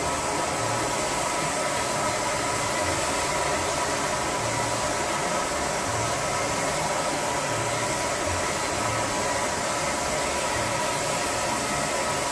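Spray-tan machine's turbine blower running steadily, feeding a hose-fed spray gun: a constant whine over an even hiss of air.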